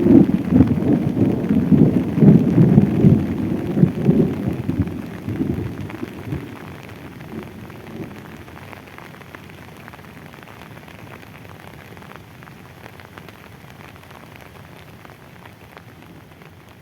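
A roll of thunder rumbling low and dying away over the first five or six seconds, over steady rain pattering.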